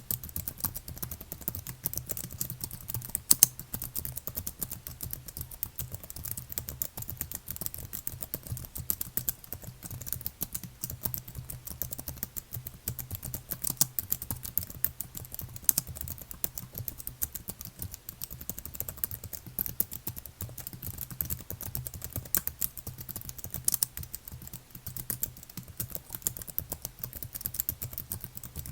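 Computer keyboard being typed on continuously: a fast, irregular stream of key clicks, with a steady low hum beneath.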